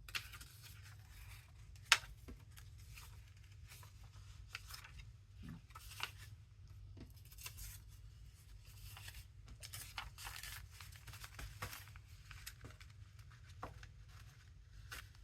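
Paper sheets being handled and shuffled: irregular light rustling and crackling, with one sharp tap about two seconds in.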